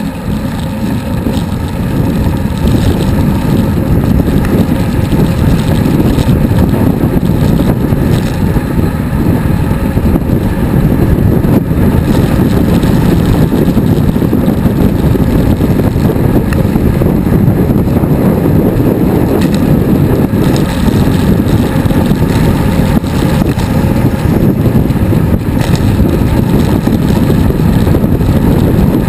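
Wind buffeting the microphone of a bicycle-mounted GoPro as the rider moves at road speed. It is a loud, steady low rumble that grows in the first couple of seconds, then holds.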